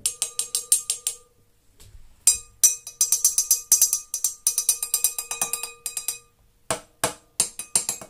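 A wine glass of water topped with oil being tapped rapidly, about six taps a second in runs with short pauses; each tap clinks and the glass keeps ringing. The tapping jars ink drops loose from the oil layer so they sink into the water.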